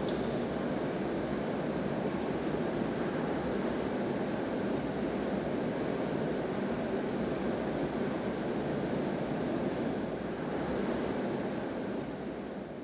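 Steady low rushing noise of a large hall's background ambience, with no distinct events, fading out near the end.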